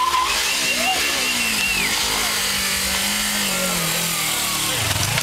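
Motorcycle engine running hard, with a high tyre squeal that trails off about two seconds in. The engine's pitch then sinks as the revs drop.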